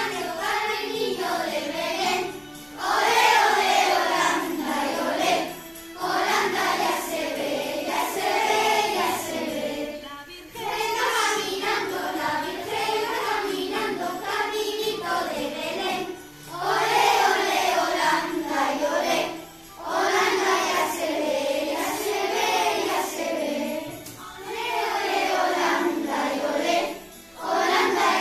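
A group of children singing a Christmas song together in unison, phrase by phrase, with short breaks between lines.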